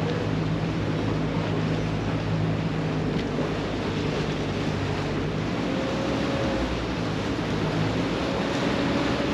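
Inboard engine of a varnished wooden speedboat running under way, a steady low drone whose note shifts a little about halfway through, with water rushing along the hull and wind on the microphone.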